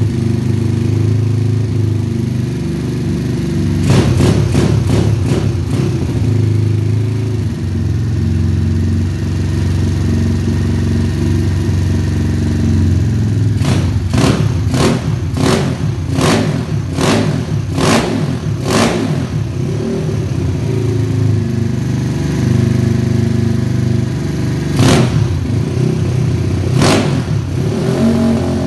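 Single-cylinder engine of a Honda Titan 150 bored out to 190cc, running with the throttle blipped in short, sharp bursts. There are a few bursts about four seconds in, a run of about eight in quick succession in the middle, and single ones near the end.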